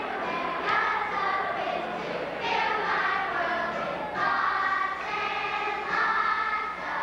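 Children's choir singing, each sung note held a second or two, over a quiet instrumental backing.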